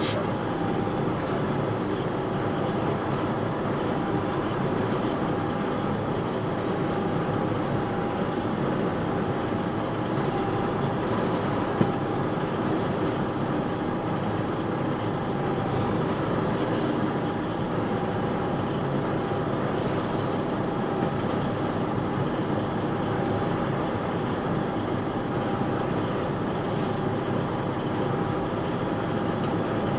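A concrete mixer truck's diesel engine running steadily as the truck moves slowly, heard from the cab.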